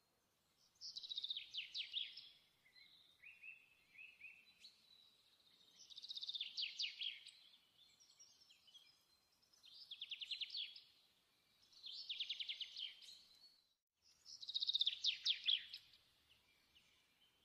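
A songbird singing: five phrases of rapid trilled notes, each a second or two long, a couple of seconds apart.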